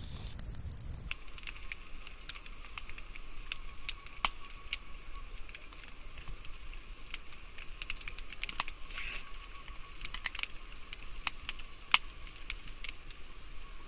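Campfire breakfast cooking: a steady sizzle with scattered sharp crackles and pops, the loudest pop near the end.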